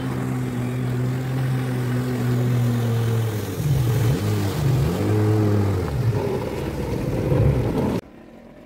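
Jet ski engine running at speed, holding a steady note and then dipping and rising in pitch several times as the throttle is eased and opened again, with the hiss of water spray. The sound cuts off suddenly near the end.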